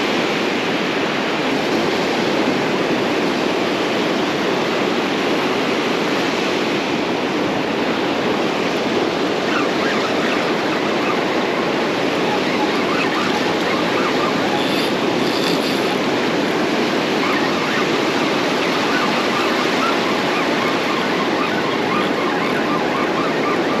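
Ocean surf breaking and washing up the sand in a steady, continuous rush.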